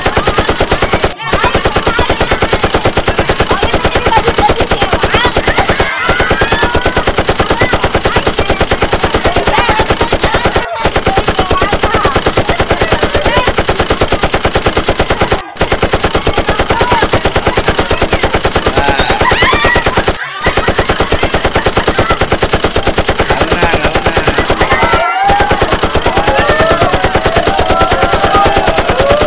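A rapid, even rattle of sharp strokes, many per second, repeated as a loop that breaks off briefly about every five seconds, with children's voices faintly under it.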